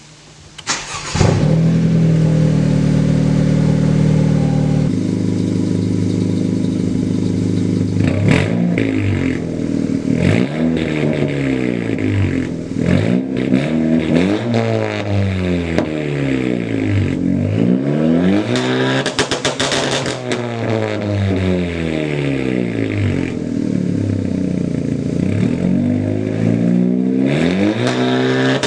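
The 2018 Honda Civic Si's 1.5-litre turbocharged four-cylinder starts about a second in and settles into a steady fast idle. From about five seconds in it is revved up and down again and again, the pitch climbing and falling with each blip.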